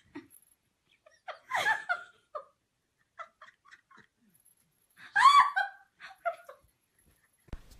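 A person laughing in short bursts, a first run of giggles about a second and a half in and the loudest laugh about five seconds in.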